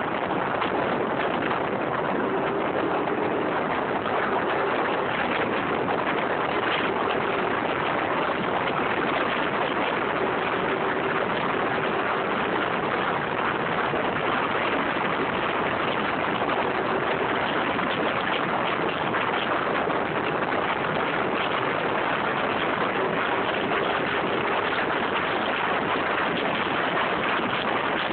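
Wind rushing over the microphone with a scooter engine running at riding speed: a steady noisy rush, and a faint engine hum that comes and goes.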